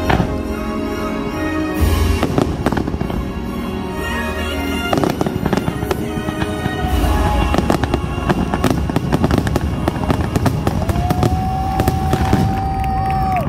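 Fireworks finale: a loud, rapid barrage of shell bursts and crackle that grows denser about halfway through, over the show's music, which holds one long note near the end.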